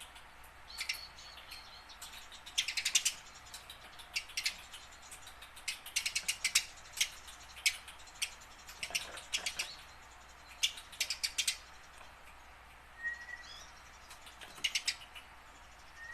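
Eurasian tree sparrow chirping in quick runs of short, sharp chirps separated by brief pauses.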